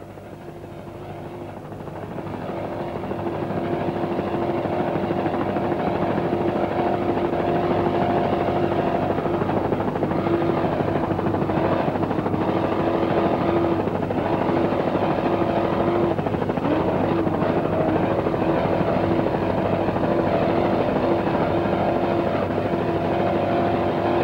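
Powerful engines running flat out in a steady drone at one held pitch, swelling in over the first few seconds.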